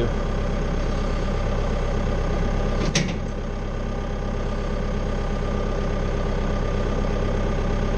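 Tractor engine running steadily at idle, with one sharp knock about three seconds in.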